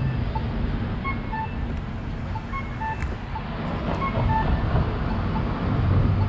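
A vehicle's low engine rumble that grows louder near the end, with short electronic beeps repeating about every half second until about four seconds in.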